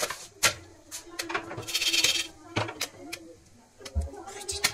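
Sporadic sharp clicks and metallic clinks from an open aluminium pressure cooker full of freshly popped popcorn, with a brief rustle about two seconds in.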